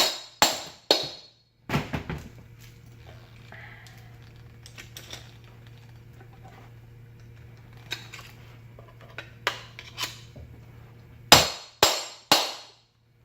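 Sharp metal-on-metal whacks on a screwdriver set in a fan motor's housing, driving the motor's halves apart: several at the start, then three hard strikes near the end, with a low steady hum and a few light clicks between them.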